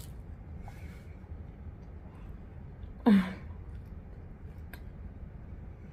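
One short, loud vocal sound from a woman about three seconds in, falling in pitch, over a low steady room hum, with a faint click later on.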